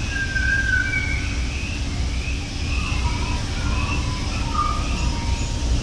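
Steady low background rumble with faint, scattered high chirps and whistles, including a brief clear whistle about a second in and a thin held tone in the second half.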